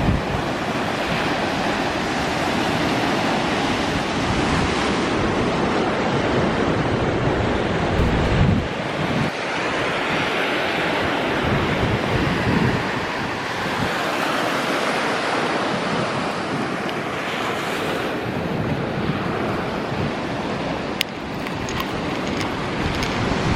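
Ocean surf washing onto a sandy beach in steady, swelling waves, with wind buffeting the microphone in low rumbles.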